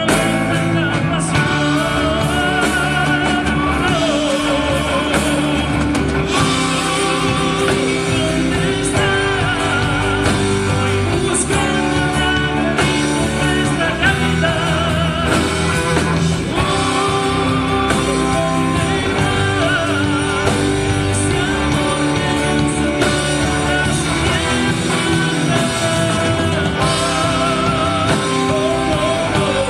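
Live band playing a romantic ballad: a male singer sings over electric and acoustic guitars and bass guitar.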